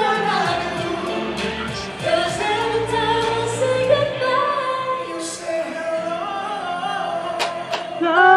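A live pop song playing: singing over backing music. Two short clicks come near the end.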